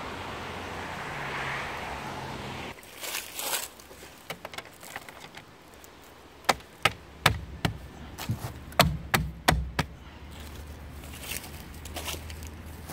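Road traffic rushing past for the first three seconds, then a cut to a string of sharp knocks and taps on a car wheel, a hand on its tyre and plastic hubcap, clustered between about six and ten seconds in.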